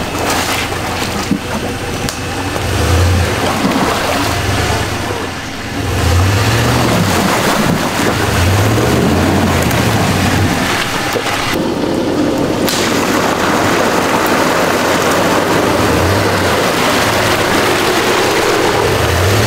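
Ram 1500 Rebel pickup driving through mud and water: a dense, loud rush of splashing and tyre noise over a low rumble that swells and fades several times.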